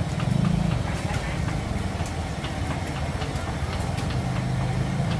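An engine idling steadily, with voices and scattered small clicks around it.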